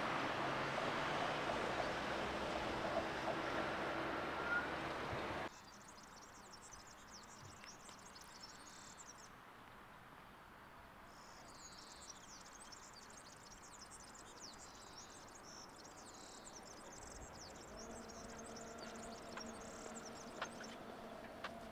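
Road vehicles passing with a steady low hum for about five seconds, then a sudden drop to quiet, with dense high chirping of insects from the grass. Near the end, the faint hum of an approaching tram grows slowly.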